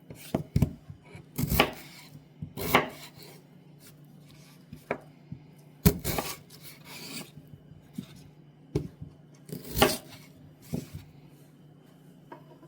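Kitchen knife cutting raw potatoes into chunks on a cutting board: irregular sharp taps of the blade hitting the board, with a few longer slicing strokes.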